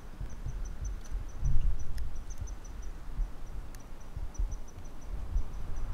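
An insect chirping: short, thin, high-pitched pulses repeating evenly at about five a second, over an uneven low rumble.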